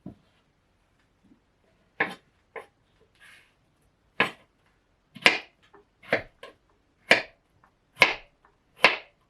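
Kitchen knife cutting cucumber on a cutting board: a few spaced cuts, then a steadier run of about one cut a second.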